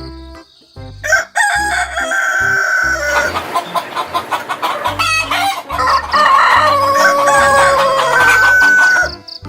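Rooster crowing twice, about a second in and again in a longer call from about six seconds in, with clucking chickens between. Background music with a steady beat runs underneath.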